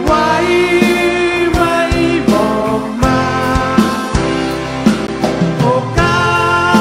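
Man singing live with a band: long held sung notes over drums keeping a steady beat.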